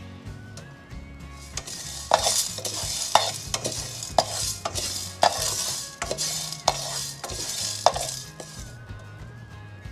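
A wooden spatula stirring dry split lentils, rice, peppercorns and fenugreek seeds in a non-stick pan as they dry-roast, the hard grains scraping and rattling across the pan with each stroke, about one stroke a second; the stirring stops about a second before the end.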